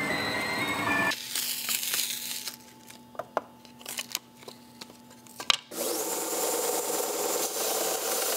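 A CNC router running, its motors whining in steps of pitch, cuts off about a second in; a quiet stretch follows with a few light clicks and knocks as the cut wooden spatula is pried off the spoilboard. About five and a half seconds in, a belt sander starts up and runs steadily as the spatula's wooden edge is pressed to the belt.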